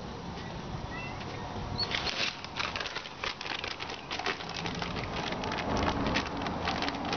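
Plastic grass-seed bag crinkling and rustling as it is handled, a fast run of crackles starting about two seconds in and easing off near the end.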